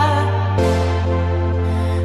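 Music from a DJ mix: held chords over a steady deep bass with no beat, the bass note changing about half a second in.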